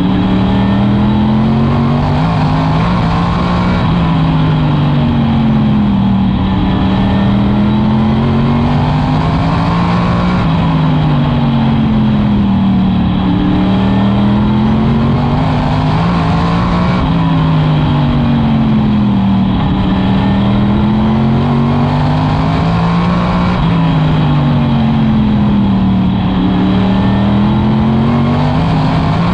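Modified race cars' V8 engines running at racing speed on a short oval. The engine note falls and climbs again about every six to seven seconds as the cars lift off for each turn and get back on the throttle.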